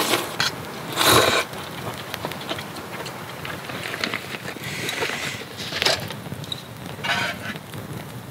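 A short, loud slurp of noodles about a second in, then scattered rustling and light clicks as things are handled in a fabric pouch.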